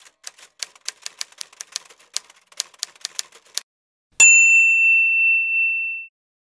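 Typewriter sound effect: a quick run of key clacks for about three and a half seconds, then a single carriage-return bell ding that rings for nearly two seconds before cutting off.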